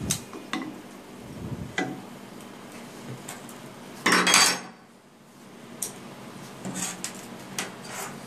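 Metal tool clinking against an exothermic welding mold, with light clicks and one louder metallic clatter about four seconds in.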